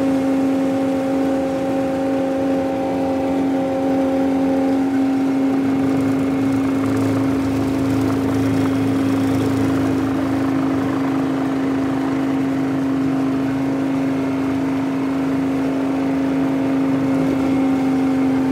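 Robinson R44 Astro helicopter heard from inside the cabin: a steady drone from its Lycoming six-cylinder piston engine, main gearbox and rotors during final approach and touchdown on a helipad. A weaker, higher tone in the drone drops away about five seconds in.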